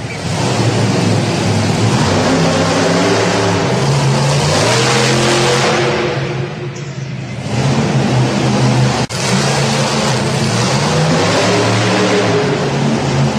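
Monster truck engine sound effect, revving and running with its pitch stepping up and down. It eases off briefly about halfway through, and there is a short drop-out a little later.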